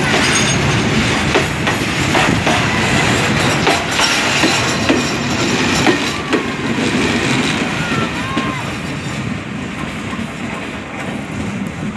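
Freight wagons of a long goods train rolling past close by, their wheels clattering over the rail joints. The noise eases off near the end as the brake van at the tail passes and the train draws away.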